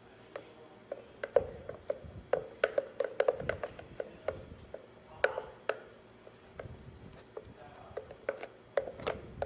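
A utensil knocking and tapping against a blender jar full of thick avocado pudding mix: irregular sharp taps, bunched into quick runs of several a second, each ringing briefly.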